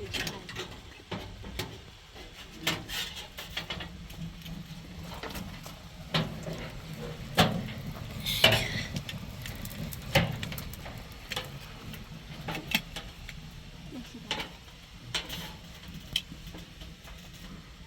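Kitchen utensils, pots and dishes knocking and clinking irregularly during food preparation, with one louder ringing metallic clink about eight seconds in.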